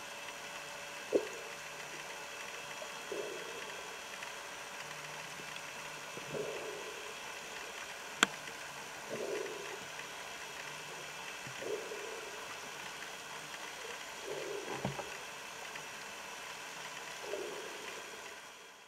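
Humpback whale song heard underwater: short, low moaning units recurring every two to three seconds over a steady hum, with two sharp clicks, one about a second in and one about eight seconds in. The sound fades out at the end.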